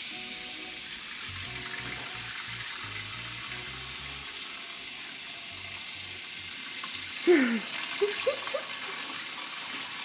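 Water from a kitchen faucet's pull-down sprayer running steadily into a plastic humidifier tank as it fills. About seven seconds in, a short falling cry is followed by a few brief chirps.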